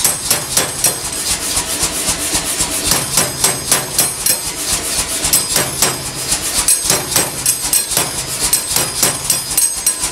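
Power hammer striking a red-hot steel bar between fullering dies in quick repeated blows, about three to four a second, over a low steady machine hum.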